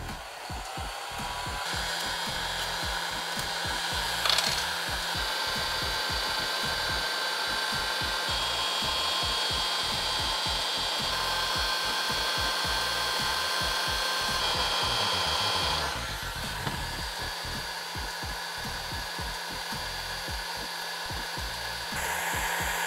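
Handheld hot-air heat gun switched on and spinning up, then running steadily with a faint whine from its fan, blowing heat onto a BMW ACC radar sensor's plastic housing to soften the very strong glue holding its covers. One sharp knock about four seconds in; the blowing drops somewhat in level about sixteen seconds in.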